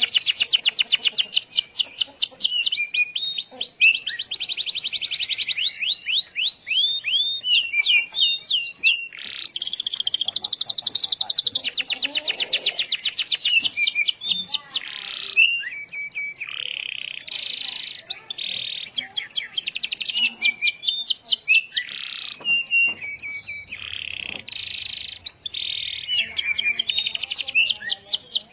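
Domestic canary singing without pause: long, rapid trills of quick sweeping notes alternating with buzzy rolls and short chattering phrases.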